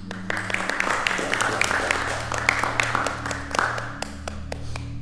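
A small group of people clapping and applauding, many quick claps overlapping, over background music with a steady low bass.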